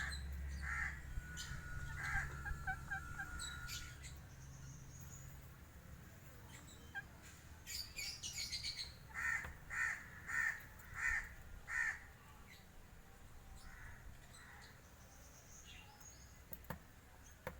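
Birds calling outdoors: scattered chirps in the first few seconds, then a run of five short, evenly spaced calls about halfway through.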